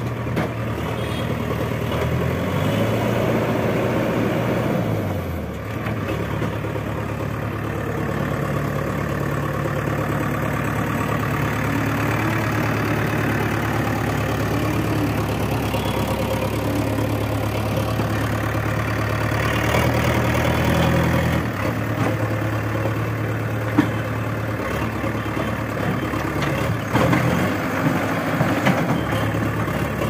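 JCB 3DX backhoe loader's diesel engine running under hydraulic load as the front loader raises a bucket of debris and dumps it into a dump truck, the engine speed rising and falling several times. One sharp clack about two-thirds of the way through.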